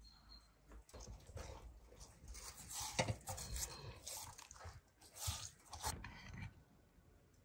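Hands rubbing and handling a raw, spice-coated grass carp on a metal tray: irregular soft wet rubbing and rustling, with a sharper knock about three seconds in.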